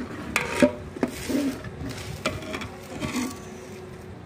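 A metal spoon stirring thick kheer in a steel pot, knocking and scraping against the pot several times in an uneven run of sharp clicks.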